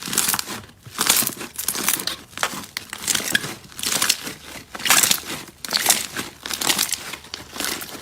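Slime being squeezed and pressed, giving crinkly, crackling pops in repeated bursts a little more than once a second.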